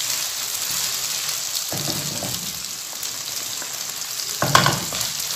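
Sliced onions sizzling steadily in hot oil in a kadhai, with a wooden spatula stirring and scraping the pan about two seconds in and again, louder, about four and a half seconds in.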